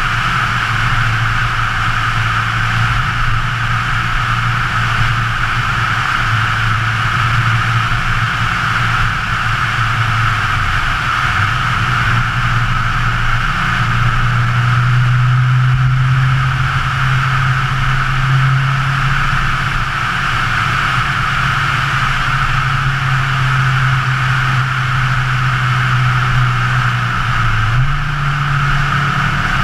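Scion FR-S's 2.0-litre flat-four engine running at road speed, its low note shifting pitch in steps and stepping up near the end, under a steady hiss of wind and road noise.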